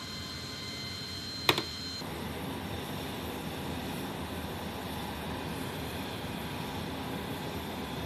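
Steady whine inside a C-17 Globemaster III's cargo hold, with one sharp click about a second and a half in. About two seconds in, this gives way to the steady rush of jet noise from the C-17 running on the ramp.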